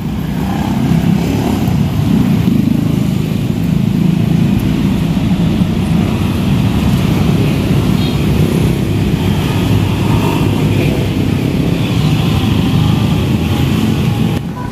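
Steady road traffic: motorcycles and cars driving past close by over the level crossing, their engines and tyres running together without a break.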